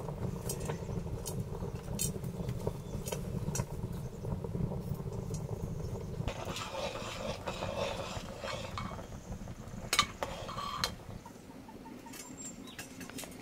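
Metal kitchen utensils clinking and scraping against pots and dishes, scattered sharp clicks over a low rumble in the first half, with two loud knocks about ten seconds in.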